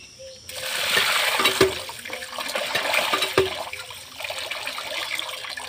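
Water rushing into a metal pan of broken rice, then sloshing as a hand swirls the grains to wash them. The rush starts about half a second in and eases off after a few seconds, with a couple of dull knocks against the pan.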